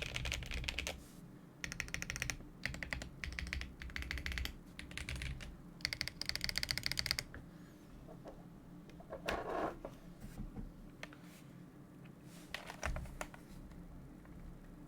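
Typing on a Sneakbox AVA mechanical keyboard with a polycarbonate case, lubed Betty switches and GMK keycaps. The keystrokes come in short bursts, the fastest run about six seconds in, and the typing stops about seven seconds in. After that there are only two duller knocks, a few seconds apart.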